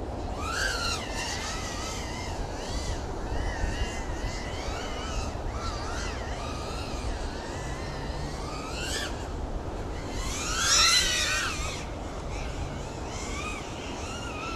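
FPV quadcopter's motors whining, the pitch gliding up and down as the throttle changes, loudest and highest about eleven seconds in. A steady low rumble runs underneath.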